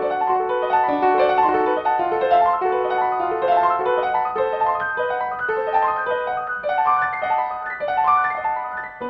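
Solo classical piano music, quick running notes that rise over and over in a flowing pattern.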